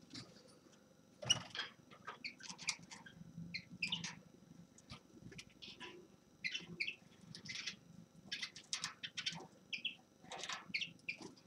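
A finch singing a twittering song of short, varied chirps and trills in quick, irregular succession, broken by a couple of sharper clicks.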